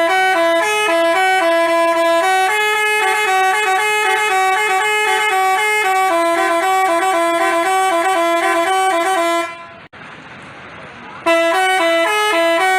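Telolet basuri horn playing a fast, jaunty melody of short stepped notes. About three-quarters through it stops for under two seconds, leaving a quieter hiss, then starts the tune again.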